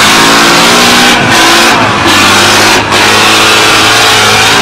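Engine of a tube-frame trial truck revving hard under heavy throttle as it churns through deep mud, easing off briefly three times in the first three seconds before pulling hard again.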